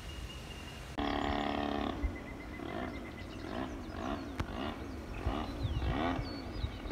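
Model airplane motor droning overhead. It cuts in suddenly about a second in, holds a steady pitch, then wavers up and down in pitch a little under twice a second.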